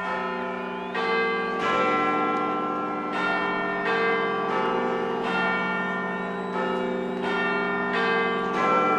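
Large bells chiming a slow sequence of struck notes at different pitches, a new strike about every three-quarters of a second, each note ringing on under the next.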